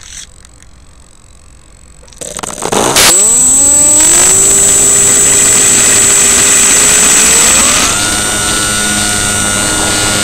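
RC plane's motor and propeller, heard close up from on board, spinning up about two seconds in with a rising pitch, then running steadily with a high whine over it. The pitch rises again about eight seconds in as the throttle is opened further in flight.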